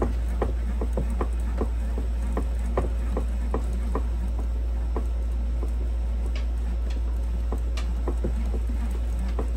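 A baitcasting reel being cranked by hand, winding line off a Berkley portable line spooler, gives an even clicking of about two and a half clicks a second. A loud steady low hum runs underneath throughout.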